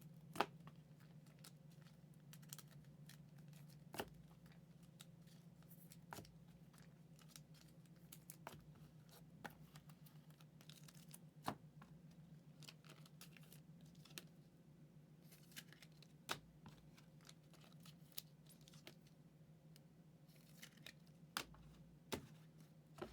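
Faint scattered clicks and light rustles from trading cards and their sleeves being handled and set down, about one every second or two, over a low steady hum.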